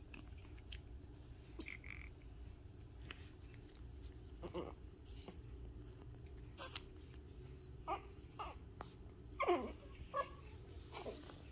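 Shih Tzu puppies giving a handful of short whines from about four seconds in, one sliding down in pitch near the end. A couple of sharp clicks come earlier.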